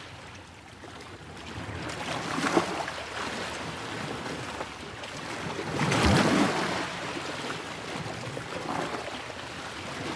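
Steady water noise of bubbling and moving water, swelling louder twice, about two and a half and six seconds in.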